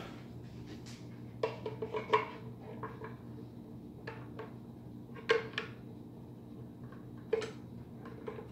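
Small metal clinks and clicks of shotgun parts and an Allen key bit being handled and fitted, in three short clusters, over a steady low hum.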